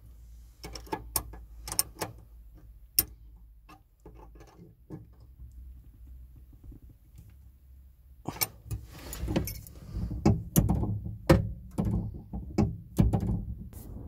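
Sharp metal clicks and clinks of a 10 mm spanner on the locking nut of a gear shifter's spring-preload adjustment bolt as the nut is tightened, turning into a denser, louder run of knocks and clatter in the last six seconds.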